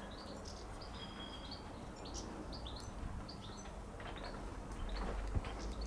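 Birds chirping in the background: scattered short high chirps with a couple of brief held whistled notes.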